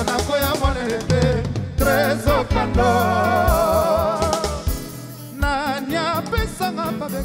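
Music with a singer holding long, wavering notes over a drum kit beat.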